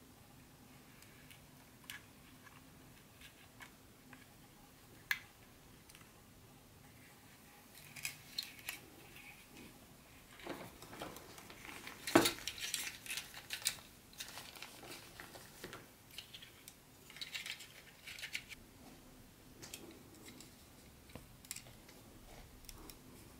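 Unboxing handling noise: plastic wrapping crinkling and a plastic packing tray creaking and tapping as HO-scale model train cars are lifted out, with scattered light clicks and a sharper knock about halfway through.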